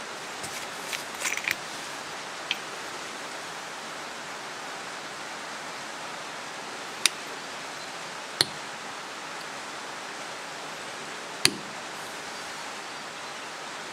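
A few sharp, separate clicks as fingers handle the capped turret of a Leupold VX-6 1-6x24 riflescope: a small cluster in the first second or so, then single clicks every few seconds, over a steady hiss.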